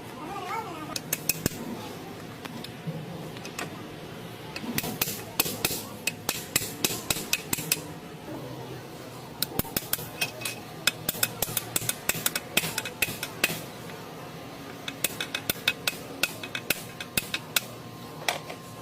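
Light hammer blows on a driveshaft universal joint, struck in quick runs of several taps a second with short pauses between runs.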